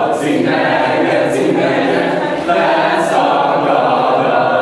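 A group of young people singing together without instruments, an unaccompanied action song.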